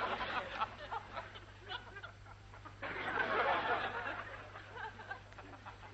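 Studio audience laughing. One wave of laughter dies away into scattered chuckles, then a second swell of laughter rises about three seconds in and fades.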